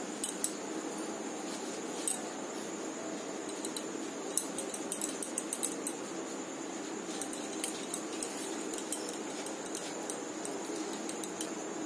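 Scattered light clicks and clinks from the bangles on her wrists as her hands roll and press chhana dough between the palms, over a steady low background hum.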